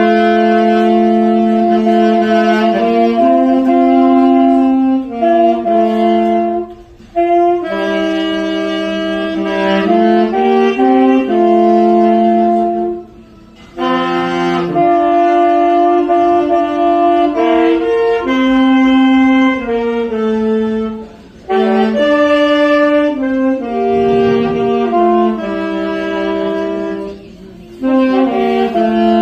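Saxophone playing a slow melody, with a second part moving in harmony beneath it, in phrases broken by short breath pauses.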